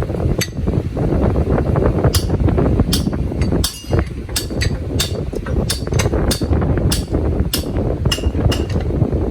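Metal hammer blows on steel gearbox parts: about a dozen sharp, irregular strikes, some ringing briefly, over a steady low rumble.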